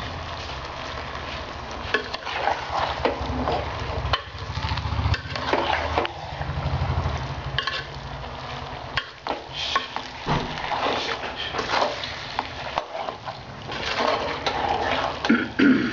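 Metal spoon stirring chopped goat organs and spices in an aluminium pot, with repeated scrapes and clinks against the pot. A low hum runs under the stirring and fades out about halfway through.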